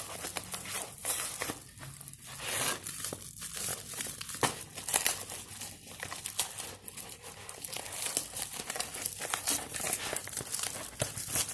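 A shipping package being torn open by hand, its packing material rustling and crackling irregularly throughout.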